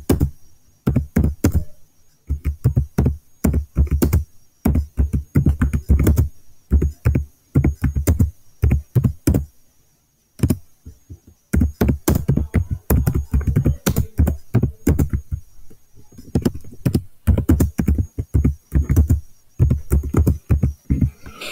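Typing on a computer keyboard: quick runs of keystrokes with several brief pauses between them.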